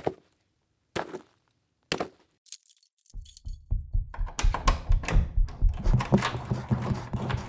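Slow, heavy footsteps about once a second, then a brief jingle of keys, followed from about three seconds in by a fast, continuous run of low thuds.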